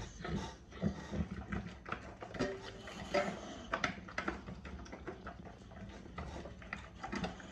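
Boxer dog eating boiled chicken in broth from a stainless-steel bowl: wet chewing, smacking and slurping, with irregular clicks against the bowl.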